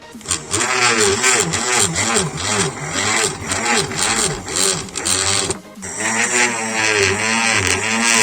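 A homemade 12-volt cordless drill's RS-775 DC motor is pulsed with its push button, spinning up and winding down over and over, so its whine rises and falls in quick repeated swells. It pauses briefly about two-thirds of the way through.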